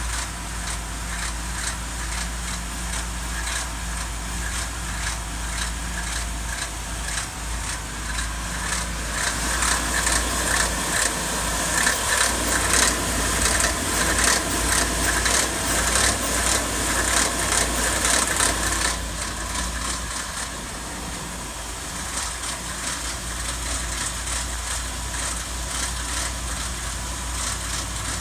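2019 Ford F-150's 5.0 V8 engine running with a rapid, metallic-sounding rattle over a steady low rumble. The rattle grows louder for about ten seconds from roughly nine seconds in, then settles back.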